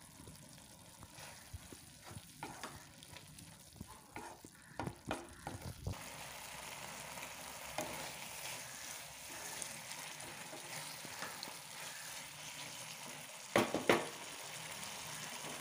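Thick dried-anchovy masala sizzling in a frying pan as a spatula stirs and scrapes through it. Scattered scrapes and knocks in the first half, a steady sizzle from about six seconds in, and two louder knocks near the end.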